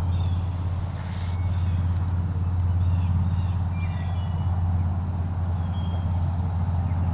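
A steady low hum with several evenly spaced pitches, with faint short high chirps now and then over it.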